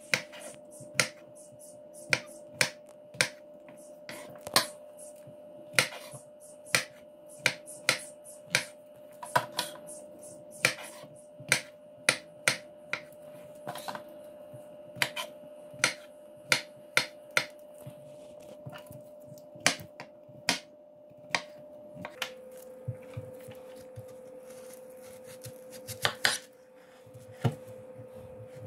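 Kitchen knife chopping white button mushrooms into cubes on a wooden cutting board, then finely chopping an onion in the last few seconds. It makes a series of sharp knocks at an uneven pace of about one or two a second, over a faint steady hum.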